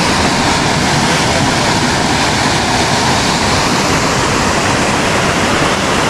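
Rushing water: a loud, steady roar.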